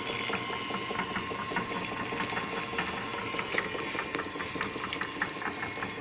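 Tortilla machine running at slow speed: a steady motor hum with a rhythmic clicking, a few clicks a second.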